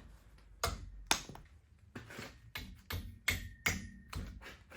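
A string of irregular metal knocks and clinks, about ten in all, a few ringing briefly, from metal parts and tools being handled on a steel axle.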